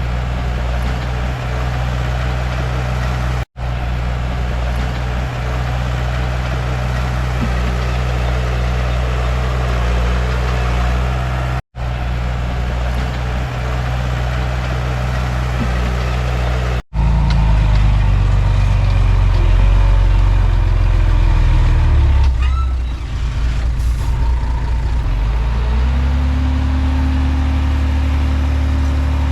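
Komatsu D31P bulldozer's diesel engine running steadily, broken by three short gaps; after the third gap it runs louder and its pitch shifts, dips briefly, then settles on a steady, slightly higher note near the end.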